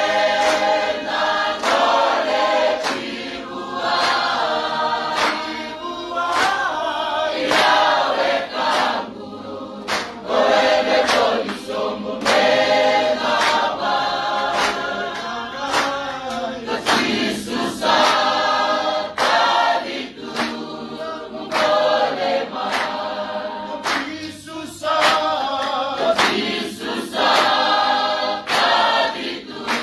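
A choir singing as background music, the voices carrying on in long phrases.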